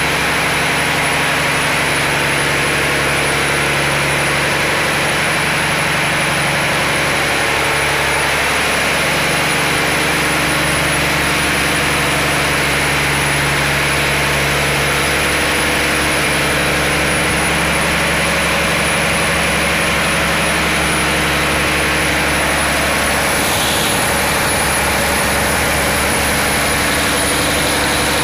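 Fishing boat's inboard diesel engine running steadily, a loud, even drone heard close up inside the engine room.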